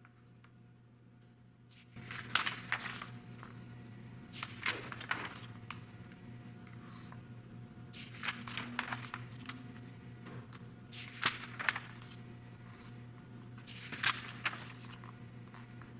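Glossy magazine pages turned by hand, a short papery swish about every three seconds, about five in all. A steady low hum comes in about two seconds in.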